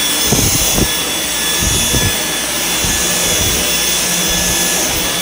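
Dyson V10 cordless stick vacuum running steadily, a thin high motor whine over the rush of suction, as its floor head is pushed over carpet tiles. A few soft knocks come in the first two seconds.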